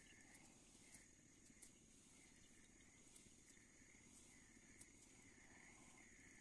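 Faint insect calls: a chirp repeating steadily a little under twice a second over a steady high whine, with scattered tiny ticks.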